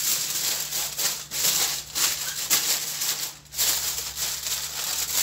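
Aluminium foil crinkling and rustling as it is folded and pressed down by hand over chicken in a baking tray, with brief pauses about two seconds in and again a little after three seconds.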